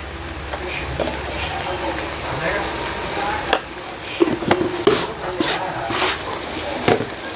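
Onion-tomato masala sizzling in a pan as it is stirred, with the chilli powder and turmeric just added frying in it. A spoon knocks and scrapes against the pan several times, mostly in the second half.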